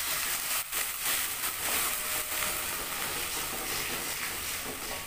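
Hot oil, shallots and bird's-eye chillies in a wok hissing and sizzling as water goes in, with a metal spatula stirring against the wok. The hiss is strongest in the first couple of seconds.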